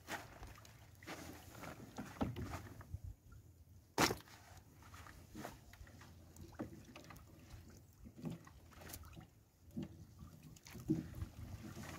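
A fishing net being hauled by hand into a small outrigger boat: scattered light knocks and rustles of net and gear against the hull, with one sharp knock about four seconds in.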